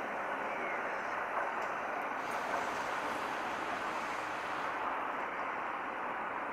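PT INKA meter-gauge passenger coaches rolling away on the track: steady wheel-and-rail noise, with a few faint clicks of wheels over the rails in the first half.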